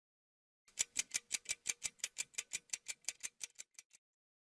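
Clock-ticking sound effect: about twenty quick, crisp ticks at some six a second, fading near the end. It is the cue for a 20-minute cooking time passing.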